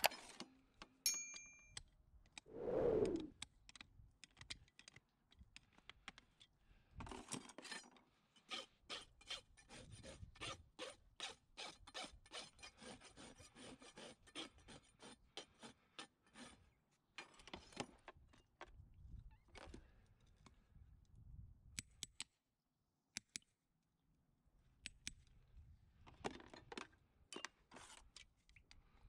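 Farrier's rasp drawn back and forth over a shod horse's front hoof: a run of quick, even scraping strokes, about three a second, through the middle, with shorter spells of rasping before and after. One short, louder sound comes about three seconds in.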